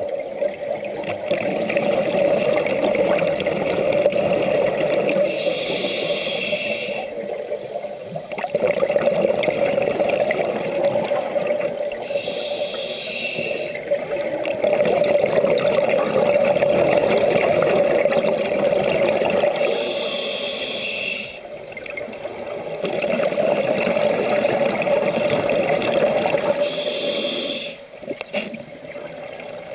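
Scuba breathing through a regulator, heard underwater: a steady rush of bubbling exhaled air, broken four times, about every seven seconds, by a short high hiss of an inhaled breath.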